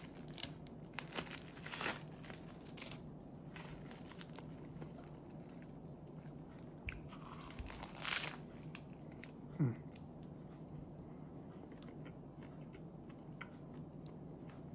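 Plastic onigiri wrapper crinkling as it is pulled off, then a crisp crunching bite into the nori-wrapped salmon rice ball about eight seconds in, followed by a brief falling hum and quiet chewing.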